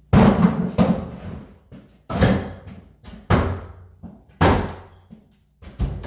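A cabinet being bashed during demolition: about six heavy slams roughly a second apart, each followed by a short rattle and clatter. The first slam is the loudest.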